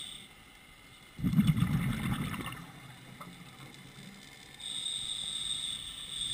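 Scuba diver breathing through a regulator underwater: an inhale's whistling hiss ends at the start, a loud gush of exhaled bubbles follows about a second in and lasts over a second, and another inhale hiss starts near the end.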